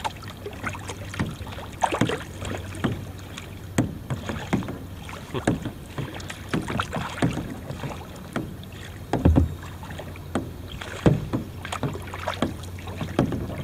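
Double-bladed kayak paddle dipping into the water on alternate sides in a slow rhythm, with irregular splashes and drips from the blades and a couple of louder knocks a little past the middle.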